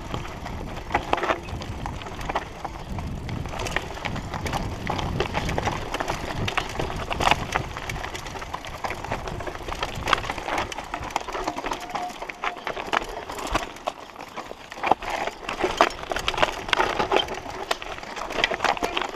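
Mountain bike rattling down a rocky dirt singletrack: frequent clicks and knocks from the frame and tyres over stones. Wind rumbles on the microphone through the first half and dies away about eleven seconds in.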